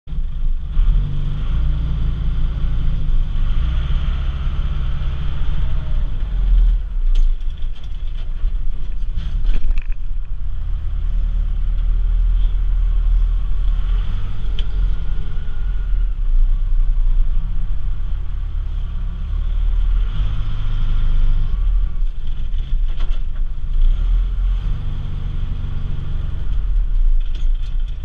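Case 580 backhoe's engine running steadily under load, heard from inside the cab while it pushes snow with a front-mounted plow blade, its pitch rising and falling. A few clunks come about a quarter to a third of the way in.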